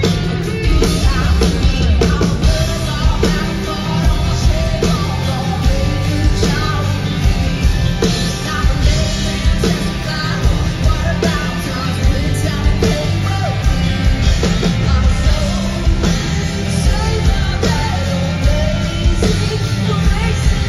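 Live band playing a rock-styled song with a woman singing lead: drum kit keeping a steady beat under electric guitars, loud through an arena PA.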